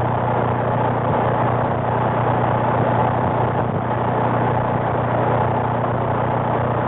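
Steady rushing static from a CB radio receiver between transmissions on channel 19, over a low, steady engine-like hum.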